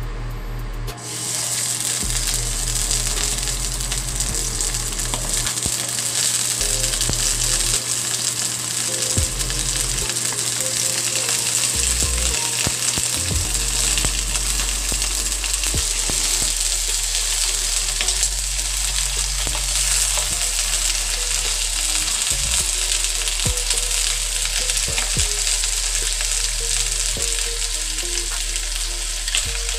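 Chicken pieces sizzling in hot oil in a wok: a steady frying hiss that starts about a second in and keeps on as more pieces go in, with a few light clicks. The chicken is being fried briefly before it is cooked further.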